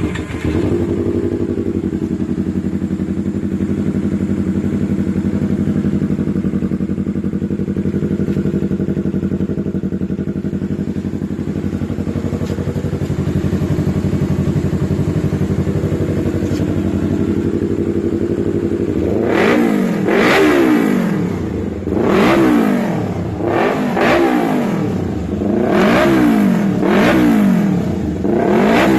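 Yamaha R3's parallel-twin engine breathing through an aftermarket Akrapovič GP full exhaust system: it fires up, idles steadily, then from about two-thirds of the way through is revved in about six quick throttle blips, each rising and falling in pitch.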